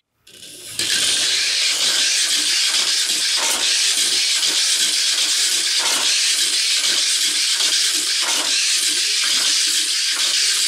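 A self-built Mini 4WD with a brushless motor at 50% output runs laps on a plastic track: a steady hissing rush with scattered light knocks, starting about a second in after a brief silence.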